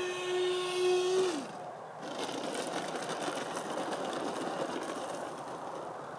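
Electric ducted-fan motors of a model Su-35 jet whining at a steady pitch, then spooling down with a falling whine about a second in. After that comes an even rushing, hissing noise.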